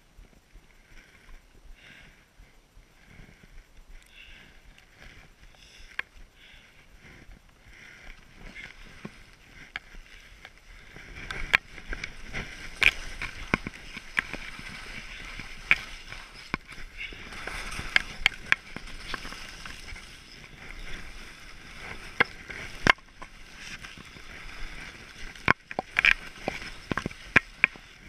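Skis sliding over snow: soft, regular swishes about once a second at first, then a louder steady hiss from about eleven seconds in, broken by many sharp clicks and clacks.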